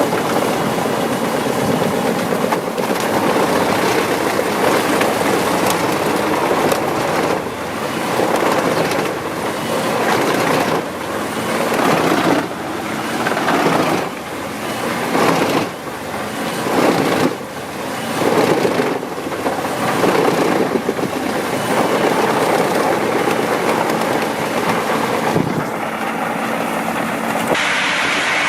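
Wood chipper machine running loudly, its noise rising and falling again and again as it works. The sound changes abruptly near the end.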